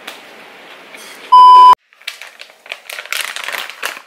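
A loud, steady, single-pitch beep lasting about half a second, a bleep-style edit sound, followed by the crinkling of a plastic snack pouch being handled.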